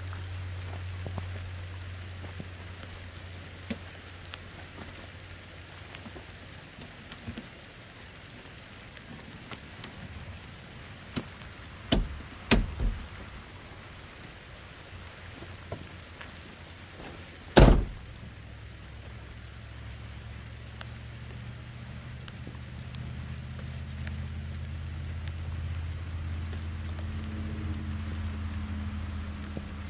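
Steady rain falling, with scattered drop ticks. A few sharp knocks come about twelve seconds in and one loud thump a few seconds later, and a low steady hum is there at the start and sets in again after the thump.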